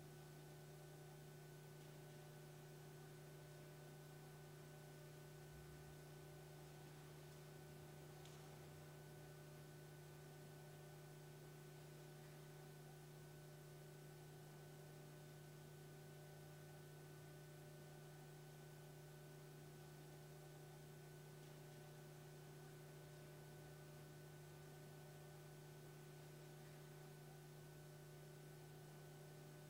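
Near silence: a faint, steady electrical hum over low hiss, unchanging throughout.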